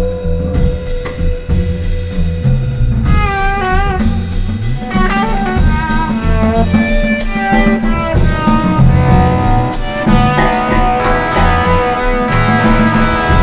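Free improvisation by a guitar, bass and drum-kit trio. About three seconds in the guitar plays wavering, bent notes over busy drums and a moving bass line.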